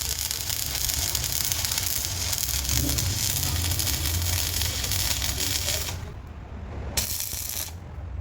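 Welding arc crackling and hissing in one long run that stops about six seconds in, then a short burst a second later, over a low machine hum.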